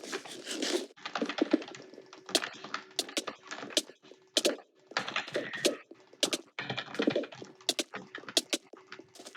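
Computer keyboard being typed on: irregular runs of key clicks with short pauses between them.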